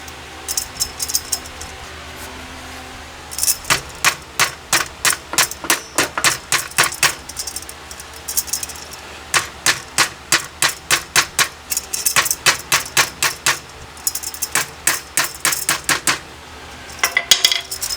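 Light hammer taps on a metal tent pole, about four a second, in several runs with short pauses between.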